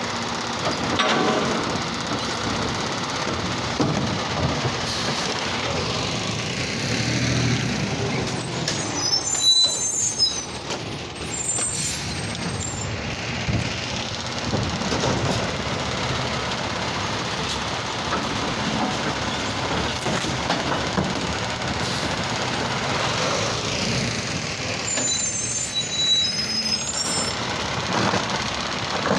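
Automated side-loader garbage truck running as it works the street, its diesel engine steady while the lifting arm's hydraulics raise and dump carts into the hopper. High thin squeals come twice, about a third of the way in and again near the end.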